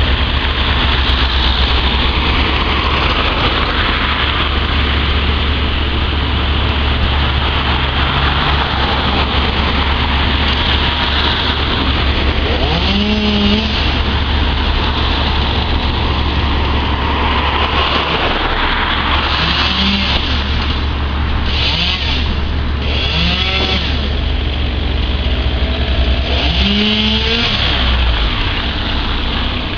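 A heavy engine running steadily, with a chainsaw revving up and back down several times over it.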